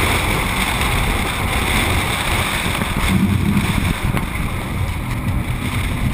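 Steady wind buffeting and road noise from a truck driving at speed, picked up by a camera mounted on the outside of the body beside a large knobby off-road tire.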